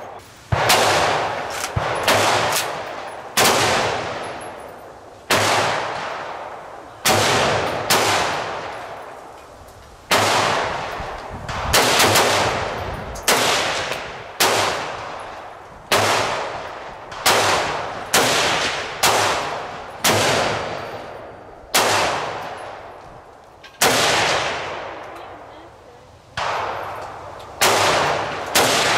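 Gunshots from firearms at a shooting range, a little over twenty shots at irregular intervals of about one to two seconds. Each is a sharp crack with a long echoing tail.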